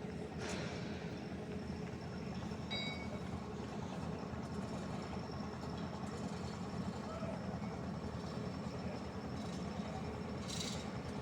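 Steady rumble of road traffic, with a short high beep about three seconds in and a few short hisses near the end.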